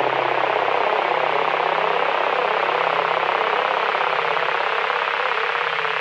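Steady, dense noisy drone with a fast flutter running through it and a faint low hum underneath, fading slightly near the end; a horror sound effect.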